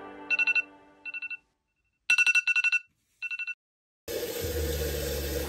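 Phone alarm going off: groups of rapid electronic beeps, alternating louder and softer, four groups in all, stopping after about three and a half seconds. A steady rushing noise starts near the end.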